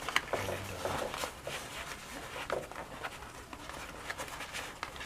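Rustling and scattered light clicks and knocks of items being handled in a waist bag's pouch.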